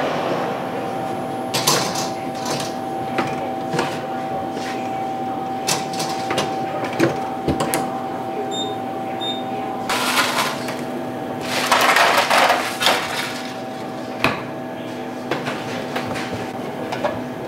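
Commercial kitchen work: scattered knocks and clatter over a steady equipment hum, with two short rushing noises about ten and twelve seconds in.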